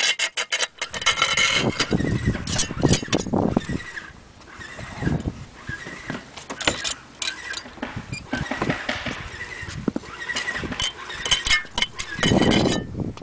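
Irregular scraping, rubbing and knocking of hand tools working the ceramic ridge tiles, a trowel spreading and dressing the flexible sealant.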